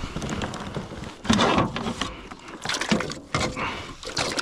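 Irregular knocks, clunks and rustling from handling a freshly caught redfish and gear on a kayak, with a few sharper knocks spaced about a second apart.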